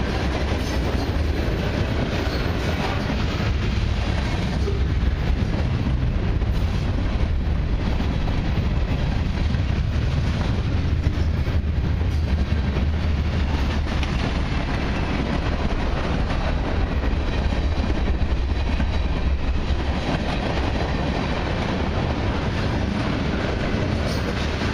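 Freight cars of a mixed freight train rolling past close by, steel wheels on the rails: a steady, even rumble with a deep low drone underneath.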